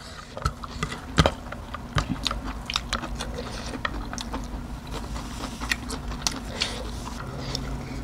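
Close chewing and biting of a meal of rice with chicken gizzard curry eaten by hand: irregular crisp clicks and small crunches, over a faint steady low hum.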